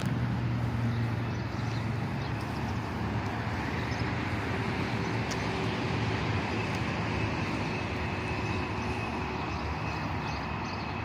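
Steady rumble of road traffic with a low engine hum, strongest in the first couple of seconds, and faint scattered footsteps on pavement.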